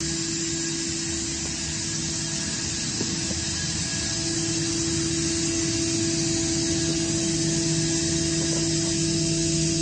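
Atlas Copco GA26VSD+ variable-speed, oil-injected rotary screw air compressor running: a steady hum with a constant whine over an even rush of air.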